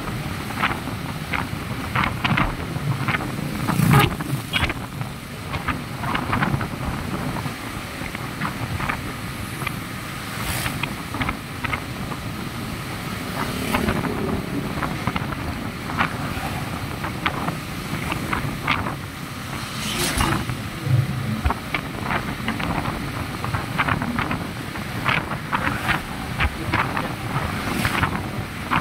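Motorcycle riding noise on a wet road: wind rushing over the microphone, with the engine running and the tyres hissing on the wet surface. Frequent short clicks and knocks run through it.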